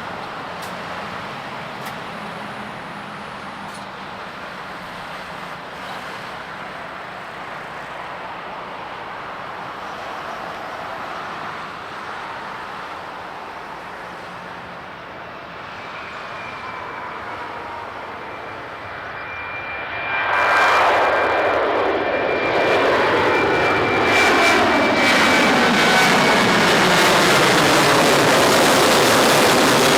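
Boeing C-40A Clipper's twin CFM56 turbofan engines at takeoff power: a steady jet rumble that swells sharply about two-thirds of the way through as the aircraft comes close, with whining tones that fall in pitch as it passes.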